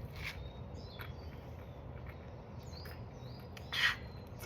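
A person gulping cold ginger ale, chugging it, with a few short swallowing sounds; the loudest comes near the end. Faint bird chirps are heard behind.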